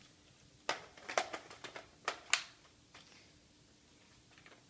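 Handling noise from a mostly polymer airsoft rifle and its magazine: a quick series of sharp plastic clicks and knocks in the first half.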